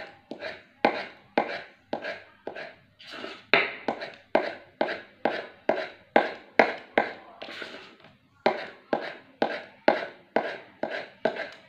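Kitchen knife slicing tomato into thin julienne strips, the blade tapping down on the cutting board in a steady rhythm of about two to three strokes a second, with a short pause about eight seconds in.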